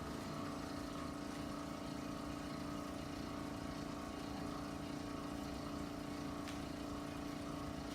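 A steady machine hum with a low fixed tone that holds level throughout.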